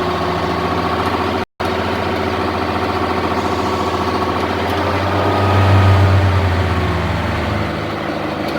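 International truck's two-stroke diesel engine idling steadily, its note swelling briefly about five to seven seconds in before settling back. The sound cuts out for an instant about a second and a half in.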